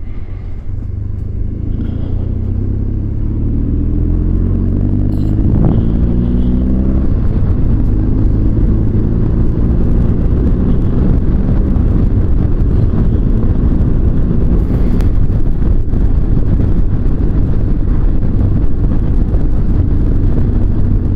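Motorcycle engine running under way with heavy wind and road rumble, its revs climbing over the first few seconds, changing abruptly about five and a half seconds in, then holding fairly steady.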